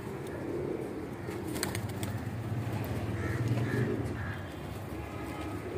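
Domestic pigeons cooing: a low, continuous cooing throughout, with a few faint higher calls in the middle.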